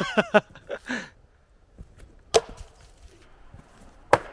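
Thrown tomahawks or chipping hammers striking wood: two sharp thuds about two seconds apart. A short voice and a couple of light knocks come near the start.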